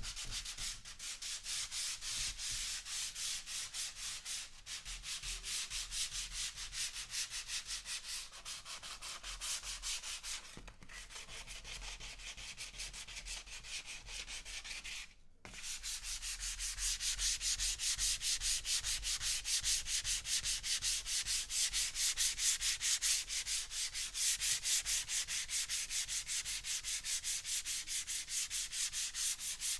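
Sandpaper rubbed on wood in quick, even back-and-forth strokes, a steady rasping scratch. It grows quieter partway through, stops for a moment, then resumes louder.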